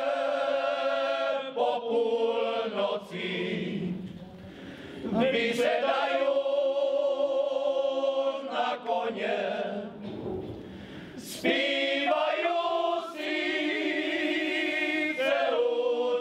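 Men's folk choir singing a cappella, in long held phrases with short breaks between them.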